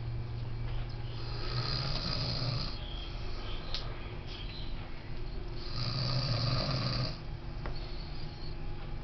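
A man snoring heavily in deep sleep: two long snores about four seconds apart, each a little over a second, with a low rattle and a hissing top.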